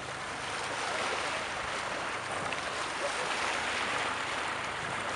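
Sea waves washing against the shore, a steady, even rush of surf.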